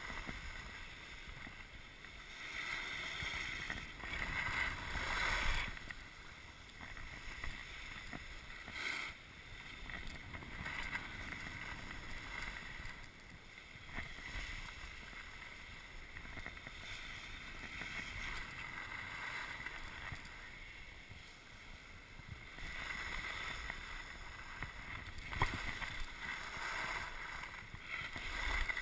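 Skis hissing and scraping over packed snow, swelling and fading in long waves. A single sharp click about 25 seconds in.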